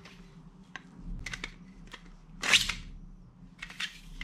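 Handling noise from a toy sword and its scabbard: a few light clicks and knocks, with one louder, longer noise about halfway through.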